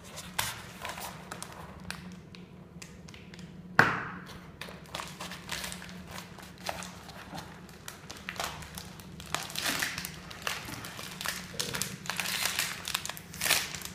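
Plastic mailer bag being handled and opened: rustling and crinkling with light taps, and one sharp knock about four seconds in. The crinkling grows louder near the end.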